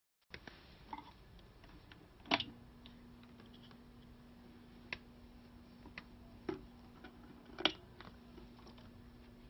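Sparse sharp clicks and light knocks, about eight of them at uneven intervals, the loudest about two seconds in and near the end. A faint steady hum starts right after the click about two seconds in and holds.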